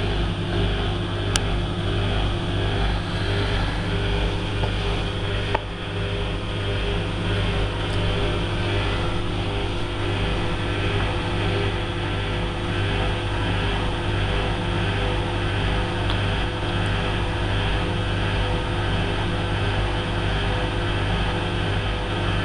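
Hotpoint Aquarius WMF70P washing machine running with a steady motor hum, the drum turning without a break, with two small clicks in the first few seconds.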